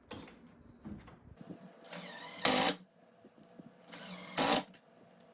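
A power drill run in three short bursts about two seconds apart, each spinning up in pitch and getting louder toward its end.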